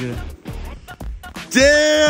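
Background music with a steady beat. About a second and a half in, a loud, drawn-out voice comes in over it, held on one slowly falling note.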